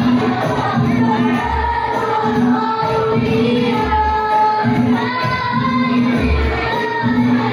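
Hadrah ensemble: boys' voices singing a sholawat devotional song together over rebana frame drums beating a steady rhythm, with a deep drum stroke about every two seconds.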